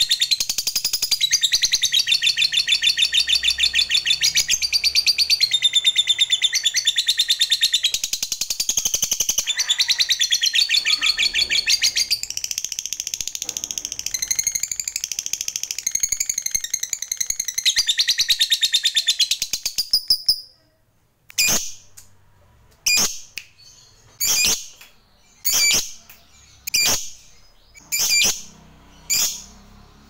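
Yellow-and-orange lovebird giving its 'ngekek': a long, fast, unbroken high chattering trill that runs for about twenty seconds, the long ngekek prized by keepers. It then stops, and the bird gives single sharp chirps about every second and a half.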